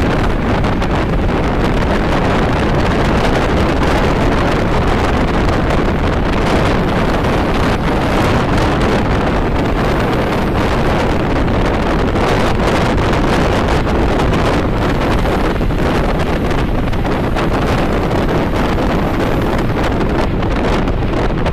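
Steady, loud rush of wind and road noise inside a car moving at highway speed, with wind buffeting the microphone.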